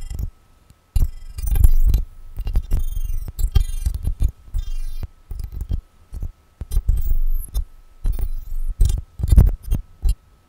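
Abstract computer-generated electronic sound, made live by an algorithm modelling a fractal (Mandelbox) life form, with no samples or conventional synthesis: irregular low thuds and crackling clicks in clusters, with brief high whistling glides, over a faint steady high tone. It stops at the very end.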